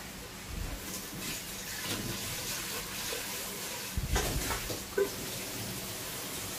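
Kitchen utensils handling noodles in a colander: soft scraping with a few light clinks about four and five seconds in, over a faint steady hiss.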